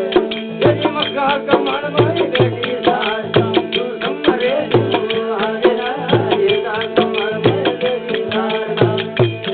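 Instrumental passage of a devotional bhajan. A hand drum keeps a steady beat of about two strokes a second under a held drone and a winding melody line.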